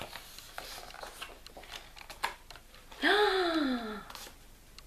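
Paper pages of a picture book being handled and turned, with light rustles and taps, then about three seconds in a drawn-out woman's "ooh" of surprise, rising then falling in pitch, the loudest sound.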